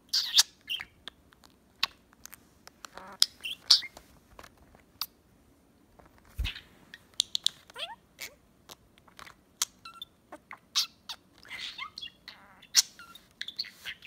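Budgerigar chattering: a string of short chirps, sharp clicks and soft warbled notes, with a few quick rising whistles and brief pauses between bursts.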